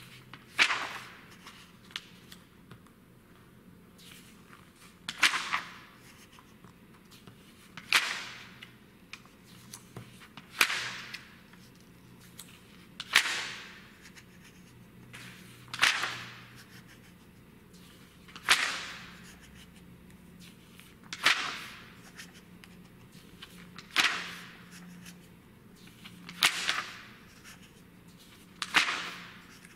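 Glossy magazine pages being turned by hand, about eleven times, roughly one every two to three seconds; each turn is a sharp swish that dies away in about half a second.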